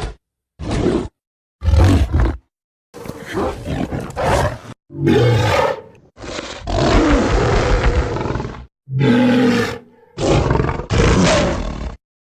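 A string of King Kong giant-ape roar and growl sound effects, about eight separate cuts of different lengths. Each starts and stops abruptly, with short silences between.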